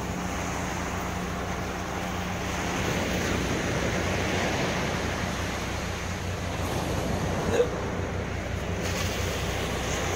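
Sea surf washing onto a sandy beach, a steady rushing noise, with a single brief thump about three-quarters of the way through.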